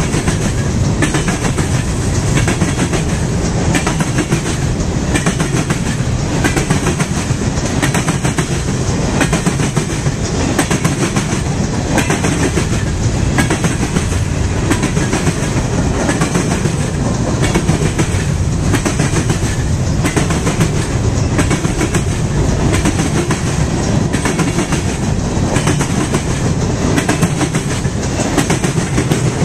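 Freight cars, covered hoppers and then autoracks, rolling past at speed: a steady, loud rumble of steel wheels on rail, with the clickety-clack of wheels clicking over rail joints.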